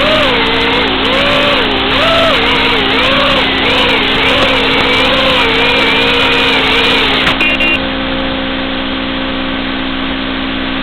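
Motors of a 5-inch FPV racing quadcopter whining, the pitch swooping up and down over and over with the throttle. About seven seconds in the whine stops suddenly, a short high double beep sounds, and a steadier, quieter hum remains.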